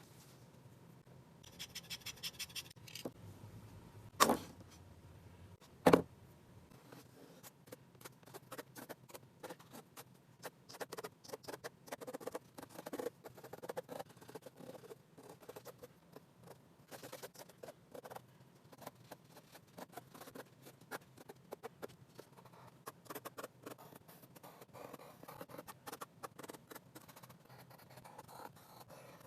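Sketching on paper: many short scratchy drawing strokes, quick and irregular. Two sharp knocks come about four and six seconds in, before the strokes settle in.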